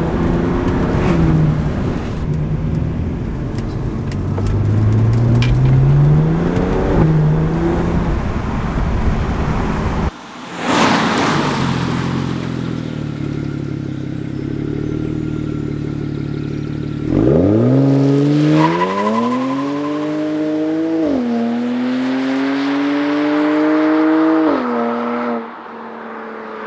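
Stock BMW 335is N54 twin-turbo straight-six running with its revs rising and falling, with a brief rush of noise about ten seconds in. Later it accelerates hard: the engine note climbs steeply and drops twice as the dual-clutch gearbox upshifts, then falls away near the end.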